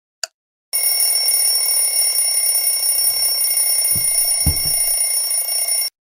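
A last clock tick, then an alarm clock ringing loud and steady for about five seconds before it cuts off suddenly, with a couple of low thuds under it about four seconds in.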